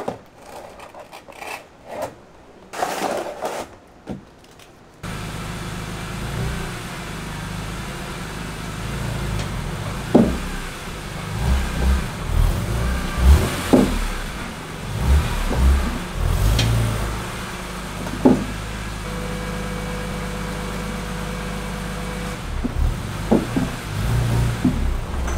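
A few hard knocks as plastic car ramps are set down. From about five seconds in, the 2002 BMW E46 M3's 3.2-litre S54 inline-six runs through its stock exhaust, idling with several short rises in revs as the car is backed onto the ramps. The stock exhaust sounds underwhelming, a little louder than stock only because one of the front catalytic converters has come loose inside.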